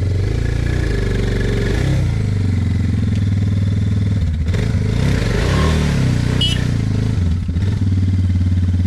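Suzuki DR650's single-cylinder four-stroke engine running, revved up and down for a couple of seconds in the middle before settling back to a steady run. It is being run to spin the rear wheel and break the suction of the mud holding the bike.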